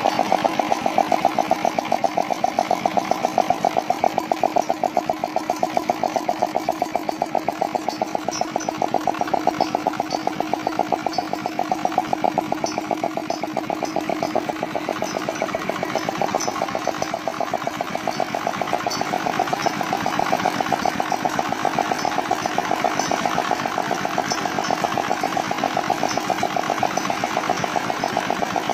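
Freshly overhauled Dongfeng R175A single-cylinder diesel engine running steadily, its firing strokes a rapid even knock, with a faint high ticking that comes and goes over the top.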